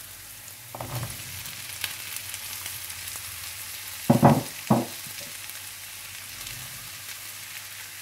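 Oil sizzling steadily in a pan of fried onion and ginger-garlic as boiled potatoes and peas go in, with a few knocks, the loudest two just after four seconds in.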